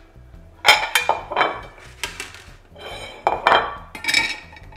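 Kitchen clatter: a run of sharp knocks and clinks from plates, utensils and cookware being handled on a worktop, some ringing briefly.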